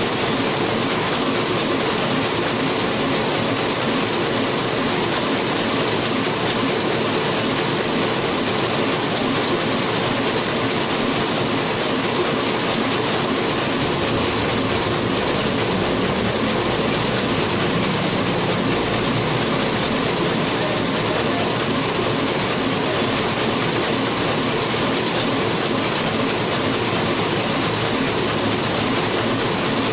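Heidelberg sheetfed offset printing press running steadily, a continuous even mechanical noise from its turning rollers and sheet-feeding mechanism.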